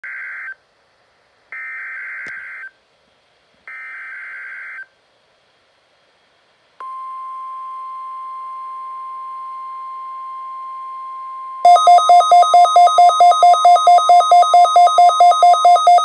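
NOAA Weather Radio SAME alert: short digital data bursts about a second long with a second's gap (the end of one, then two more). About 7 seconds in a steady 1050 Hz warning alarm tone starts. Some 5 seconds later the Midland weather alert radios set off their own loud alarm, a rapid two-tone beeping about five times a second.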